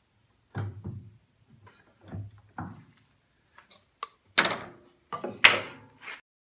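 A series of knocks and thunks as a wooden board and the table saw fence are handled on the saw table, the two loudest about four and a half and five and a half seconds in.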